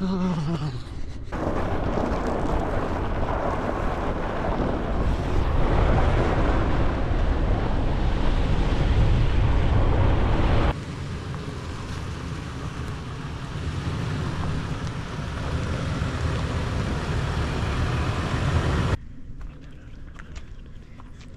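Rumble and wind noise from a moving vehicle, with wind buffeting the microphone. It comes in edited segments that jump abruptly in level: about a second in, again halfway through, and near the end, where it drops much quieter.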